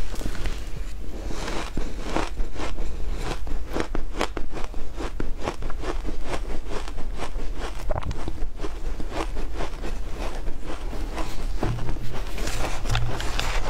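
Close-miked crunching of a mouthful of frozen shaved ice being chewed, a rapid, unbroken run of crisp crunches.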